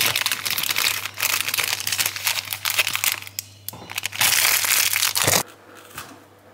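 Foil-lined cookie wrapper being unwrapped by hand, crinkling loudly. There is a brief pause a little past three seconds, then more crinkling that stops abruptly about five and a half seconds in.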